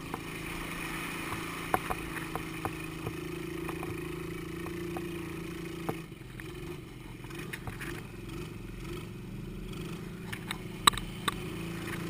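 ATV engine running steadily as the quad drives along a muddy, water-covered track. The engine note turns rougher and unsteady about halfway through, with scattered sharp clicks, the loudest near the end.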